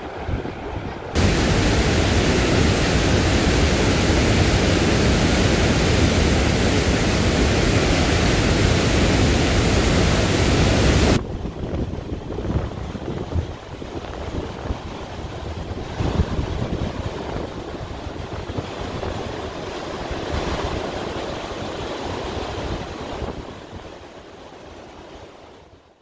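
Lower Spokane Falls roaring: steady, loud rushing of whitewater. It drops to a quieter, more uneven rush about eleven seconds in and fades out at the end.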